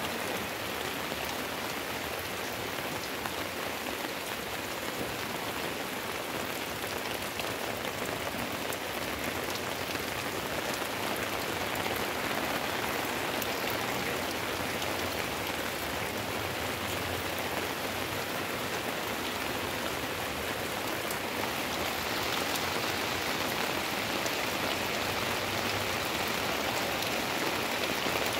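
Steady rain falling, an even hiss that grows a little louder in the last few seconds.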